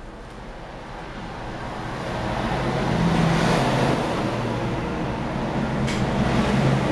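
Motor vehicle noise, a steady rushing with a low hum, growing louder over the first three seconds and then holding.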